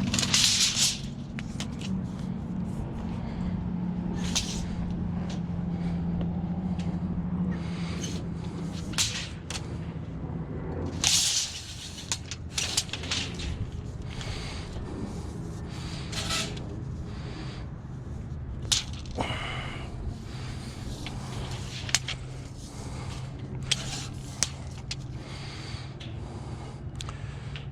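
A steady low engine hum, its pitch shifting about eleven seconds in, under scattered sharp clicks and knocks from hand work.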